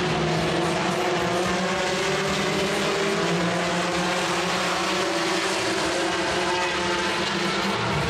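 Engine running steadily: a continuous drone at a near-constant pitch.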